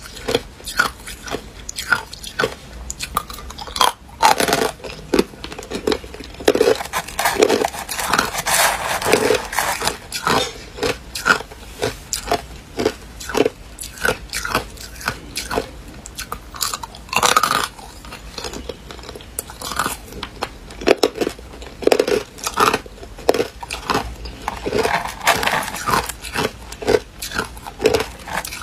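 Hard ice being bitten and chewed close to the microphone: dense runs of sharp crunches and crackles, with short pauses between mouthfuls.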